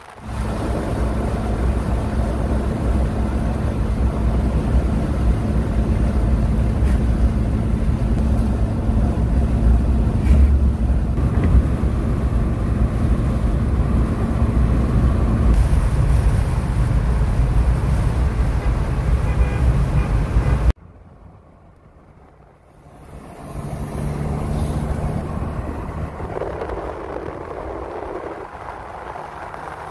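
A moving car heard from inside the cabin: a steady low rumble of engine, tyres and wind. About two-thirds of the way through it cuts off suddenly, then comes back quieter with a steadier engine hum.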